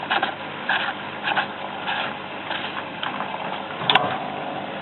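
Tricity Bendix AW440 washing machine's motor running and drum turning in its balancing phase before the spin, with a rough pulse about every half-second to second and a sharp click about four seconds in.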